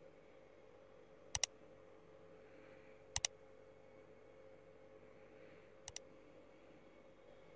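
Three quick double clicks of a computer mouse, spaced about two seconds apart, the click sound effect of a subscribe-bell-like button animation, over a faint steady hum.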